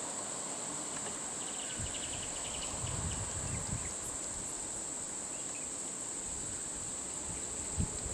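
Steady high-pitched insect drone, with a few low thumps about three seconds in and a short, sharp knock near the end.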